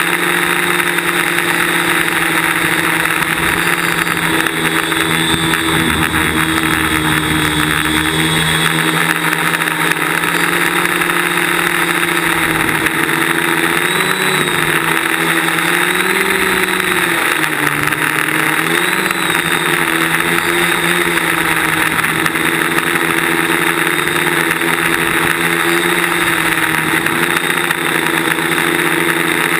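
DJI Flame Wheel quadcopter's electric motors and propellers, heard from its onboard camera as a steady hum over a constant hiss of prop wash. The hum wavers up and down in pitch about halfway through as the throttle changes.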